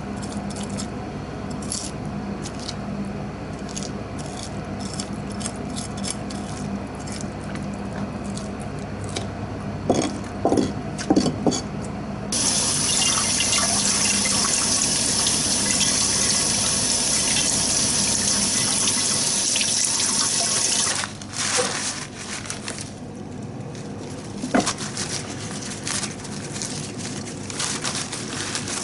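Kitchen tap water running into a stainless-steel sink as a gutted mackerel is rinsed under the stream. The water comes on suddenly a little before halfway through and shuts off about eight seconds later. Before and after, there are small scattered clicks and knocks from handling the fish over a steady low hum.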